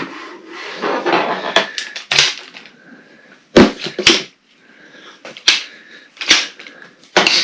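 Shock-corded aluminium poles of a Helinox Chair One frame snapping together at their joints: a series of sharp clacks, roughly one a second and irregularly spaced, with rustling from handling between them.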